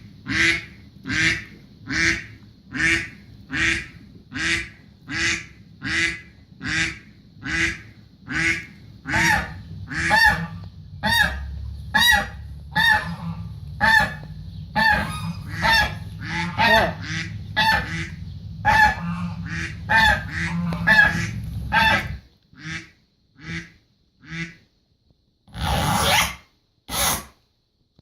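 A sound-effect recording of repeated bird calls: single calls about three every two seconds at first, then many overlapping calls as from a flock, thinning to a few sparse calls before two louder, harsher sounds near the end.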